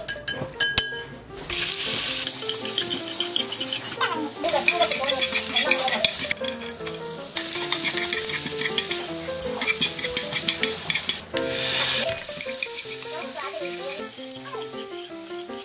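Food sizzling in a nonstick frying pan as it is stir-fried with chopsticks: julienned carrots, then beef strips cooking until their moisture is gone. The sizzle starts about a second and a half in and comes in several stretches that change level abruptly.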